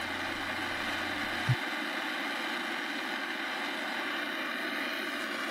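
Jeweller's gas torch flame hissing steadily as it melts sterling silver in a ceramic melting dish. A low hum stops with a short thump about one and a half seconds in.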